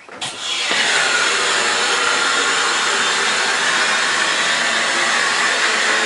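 Hydraulic elevator power unit, the motor-driven pump, starting abruptly and running steadily. It makes a loud hissing whine that drops and settles in pitch within the first second.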